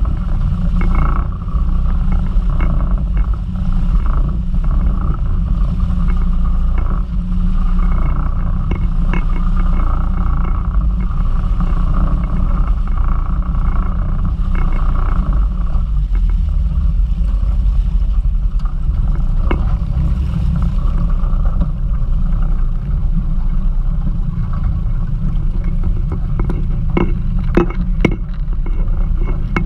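Outboard motor running as the boat travels over choppy sea, with a heavy low rumble of hull and water noise. The higher engine note fades about halfway through as the boat slows, and a few sharp knocks sound near the end.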